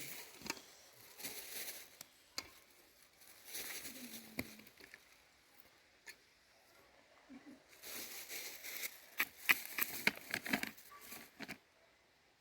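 Intermittent rustling and crinkling in several bursts of a second or two, with scattered light clicks and taps between them.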